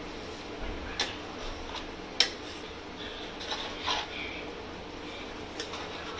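A spoon stirring a pot of leafy greens, knocking against the side of the pot in a few sharp clicks, the loudest about two seconds in, with scraping and rustling of the leaves in between, over a steady low hum.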